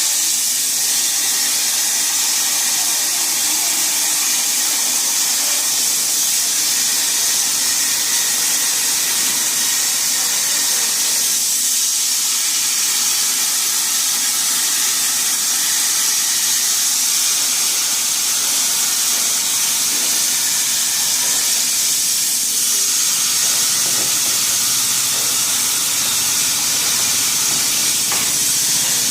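CNC plasma torch cutting steel plate: a loud, steady hiss that holds an even level throughout.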